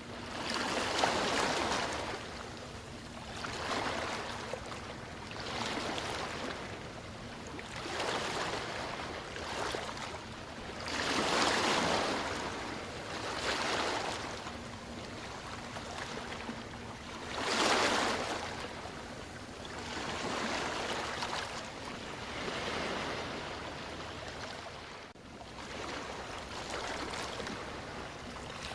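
Sea waves washing in, each one swelling and fading, one every two to three seconds.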